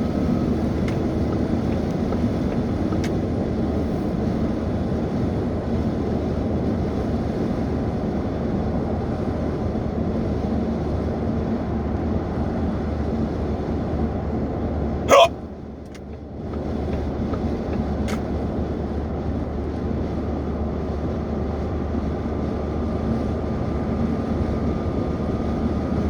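A single loud human hiccup about fifteen seconds in, over a steady low background noise with a faint hum.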